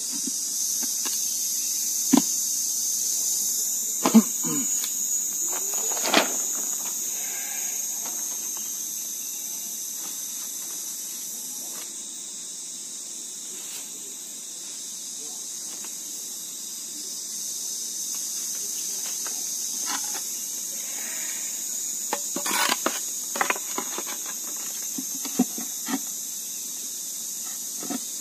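Steady high-pitched insect chorus, with scattered knocks and rustles as a wooden stingless-bee hive box is handled: its lid set back on, a plastic sheet laid over it, then a roof tile. The knocks come a few times in the first six seconds and in a cluster near the end.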